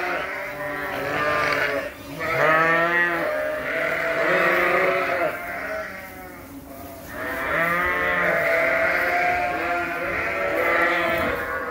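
A flock of sheep bleating in the barn, many calls overlapping almost without a break, with a brief quieter lull about six seconds in.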